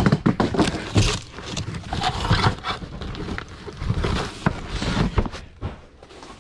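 Rummaging through stored belongings by hand: irregular rustling, knocks and clatter of objects being moved and handled.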